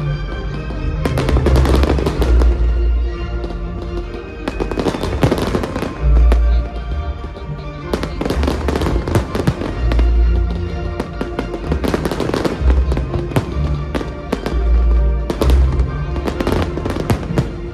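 Fireworks bursting and crackling in repeated volleys, about every three to four seconds, over music with deep bass.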